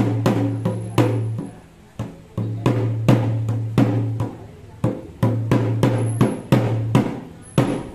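Ritual drums beaten in an uneven run of loud strokes, two to three a second, each stroke ringing on with a low tone that dies away.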